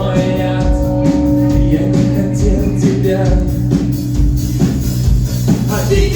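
Live rock band playing: electric guitars over a steady drum beat, with a little singing.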